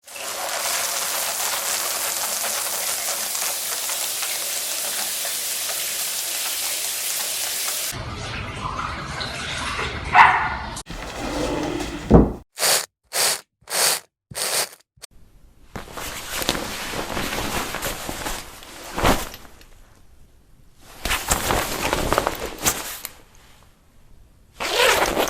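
A sequence of separate everyday household sounds: a steady hiss for about eight seconds, then a string of shorter noises, among them four quick bursts in a row.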